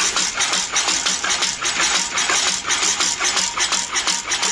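Lister stationary engine running with an even, steady beat, part-way through having its timing and fuel adjusted and running close to smooth.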